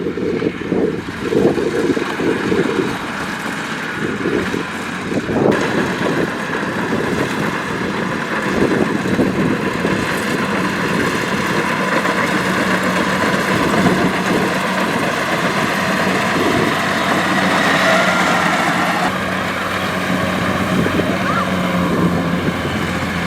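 Kubota DC-70 combine harvester running steadily while harvesting rice: a continuous diesel machine drone with a steady low hum, turning brighter and hissier about five seconds in.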